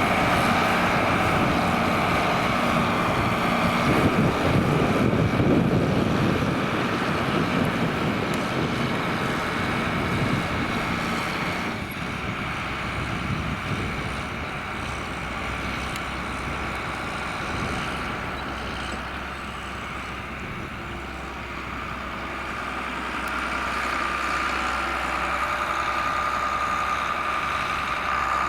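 John Deere 4850 tractor's six-cylinder turbo diesel running steadily under load, pulling a six-furrow plough. It is loudest about five seconds in, fades to its quietest around twenty seconds in, then grows again near the end, where a high steady whine becomes stronger.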